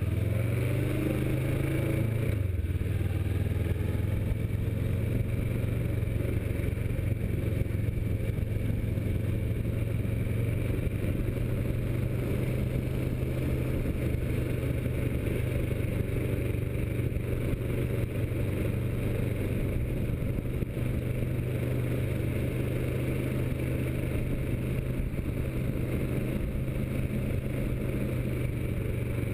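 Kawasaki Versys motorcycle engine running as the bike rides at low town speed, heard from on the bike with road and wind noise. The engine pitch rises briefly and drops about two and a half seconds in, then holds steady.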